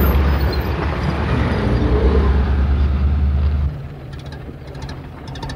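Cabin of a 1922 Morris Bullnose with its 11.9 hp side-valve Hotchkiss engine: the car rolls and slows with engine and road rumble, comes to a stop a little over halfway through, and then the engine idles with a quick, even mechanical ticking.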